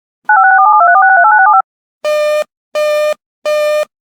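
A quick string of telephone touch-tone (DTMF) digits lasting just over a second. After a short gap, a busy-signal-like beep repeats about every three-quarters of a second, three times.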